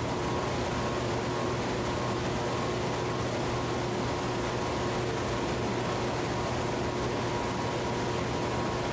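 Steady machine-room noise of a small hydroelectric plant's turbine-generator set running: a constant low hum and a few steady higher tones over an even rushing noise.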